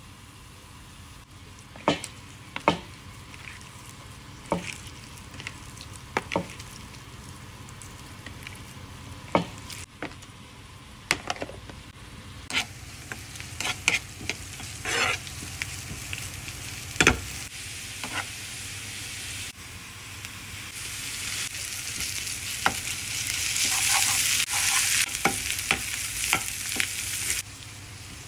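Chopped onions sizzling in oil in a nonstick frying pan while a spatula stirs them, with sharp knocks of the spatula against the pan. The sizzle grows louder in the second half and drops off shortly before the end.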